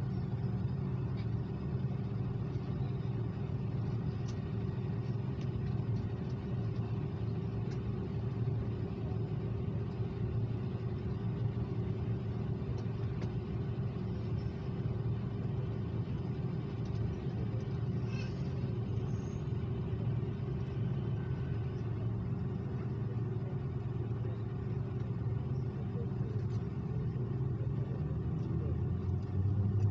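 Steady low drone of an Airbus A330's engines and air system heard inside the economy cabin, with a constant hum and faint small ticks.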